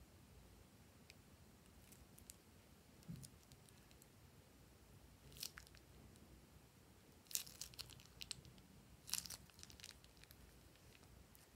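Quiet crinkling and crackling of a plastic piping bag being squeezed as thick yellow slime base is piped out. It comes in a few short bursts in the second half.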